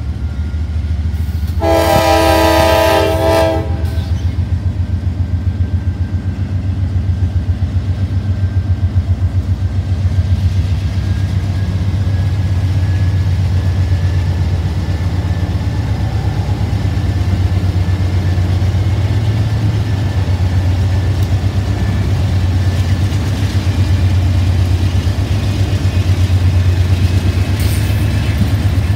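CSX diesel freight locomotives passing close by, their engines running with a steady low rumble. About two seconds in, the lead locomotive sounds its horn once: a chord of several notes lasting about two seconds.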